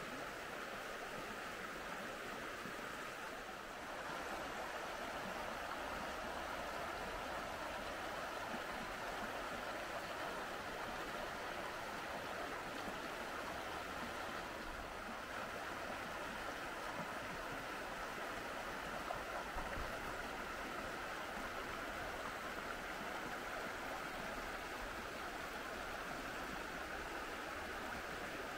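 River water rushing steadily, an even continuous flow.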